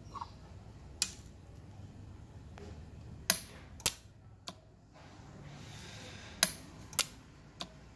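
Pen-type jewelry spot welder firing on brass: a series of about seven sharp, short snaps at irregular intervals, each one a weld discharge.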